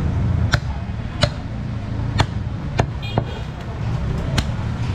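Butcher's knife chopping goat meat: about six sharp chops at uneven spacing, roughly one a second, over a steady low background rumble.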